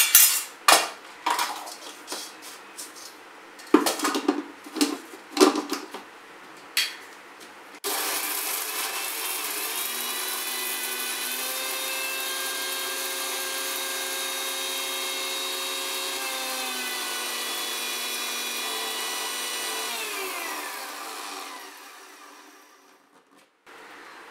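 Steel cup clinking and scraping in a steel bowl as roasted whole spices are scooped and tipped into a mixer grinder jar. About eight seconds in, the mixer grinder's motor starts suddenly and runs steadily with a high whine for about twelve seconds, dry-grinding the spices, then is switched off and winds down with a falling pitch.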